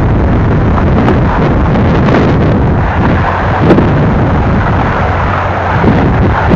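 Wind buffeting the microphone, loud and steady with a couple of brief sharper thumps, over the running noise of a Union Pacific manifest freight train rolling downgrade.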